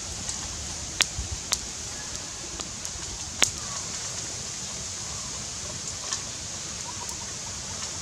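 Open fire of sticks and dry leaves burning with a steady hiss and crackle, broken by a few sharp pops, the loudest about three and a half seconds in.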